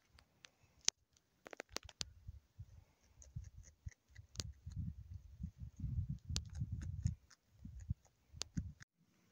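Gusts of wind buffeting the microphone in low, uneven rumbles, with scattered sharp clicks and ticks.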